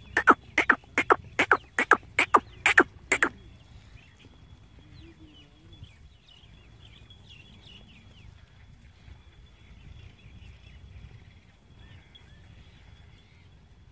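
A rapid series of about ten sharp, loud clicks, about three a second, in the first three seconds. Then faint short chirps over a low background rumble.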